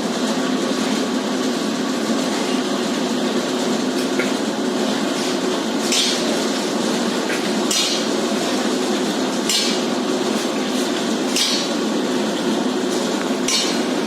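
Hand hammer strikes on a construction site: about five sharp, clinking blows roughly two seconds apart, heard over a steady din of site noise.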